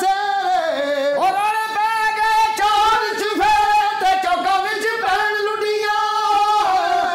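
A single voice singing a slow melody in long, high held notes with a wavering vibrato, sliding down and back up about a second in.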